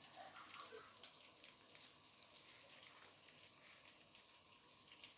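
Faint, steady crackling sizzle of fish croquettes deep-frying in hot oil in a deep fryer, with many small pops.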